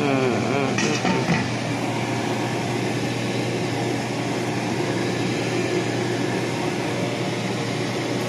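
A steady hum with an even hiss in a kitchen, with no popping yet. A voice murmurs briefly about a second in.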